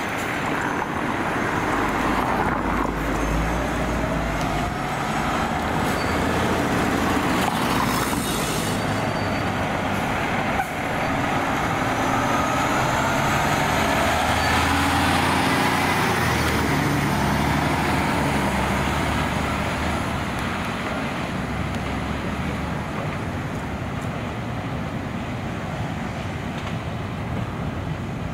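Diesel engine of a Pierce Velocity fire engine running under load as the heavy truck drives past and pulls away, its low engine note shifting up and down, with road and traffic noise.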